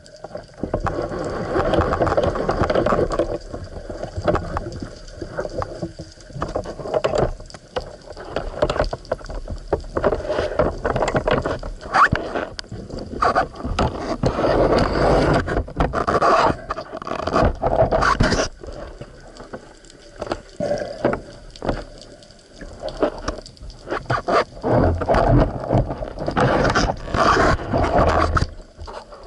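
Water sloshing and gurgling around a waterproof camera in irregular swells, with scattered knocks and scrapes against the housing.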